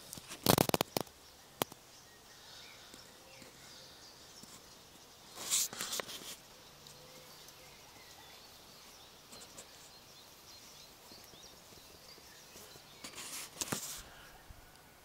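Quiet outdoor garden background with faint bird chirps, broken by three short bursts of crackling clicks: about half a second in (the loudest), around six seconds in, and near the end.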